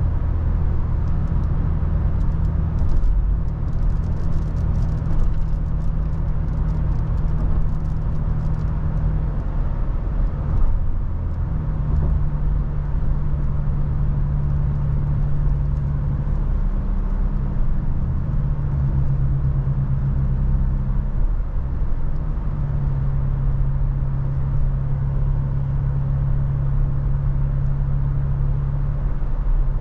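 Toyota FJ Cruiser's 4.0-litre V6 on the move: a steady hum of engine and road noise, the engine's low drone shifting to a new pitch several times.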